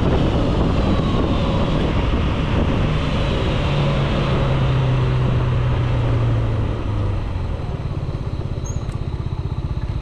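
2013 Yamaha SMAX single-cylinder scooter slowing down, with wind rush over the microphone and the engine note falling. About three-quarters of the way in it settles to a steady pulsing idle.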